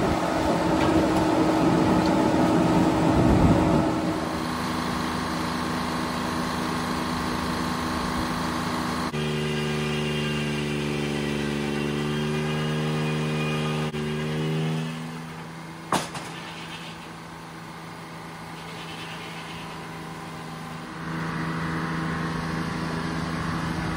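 Frick circular sawmill driven by a three-cylinder Detroit Diesel engine. For the first four seconds the loudest sound is the 48-inch carbide-tipped blade cutting through wood over the engine; after that the diesel runs steadily. The engine note shifts about nine seconds in, and the sound drops quieter for a few seconds, with one sharp click, before rising again near the end.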